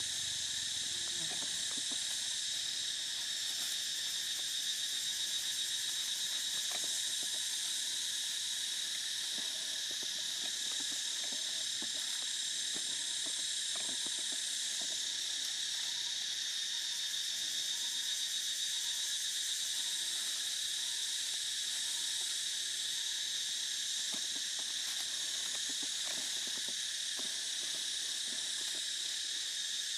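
Steady chorus of forest insects: a continuous high-pitched buzzing drone that holds unchanged throughout.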